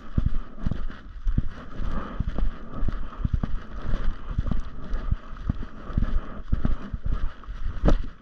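Footsteps crunching through forest-floor leaf litter and twigs, a couple of uneven steps a second, with wind buffeting the microphone. A sharp crack, like a stick snapping, comes near the end.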